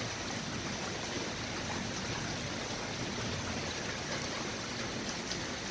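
Steady rain from a thunderstorm, an even hiss with no thunder clap in it.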